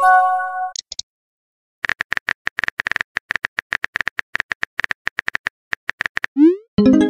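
Messaging-app sound effects: a short chime of several notes as a message arrives, then a fast run of keyboard-tap clicks for about four seconds, then a brief rising tone and another chime near the end.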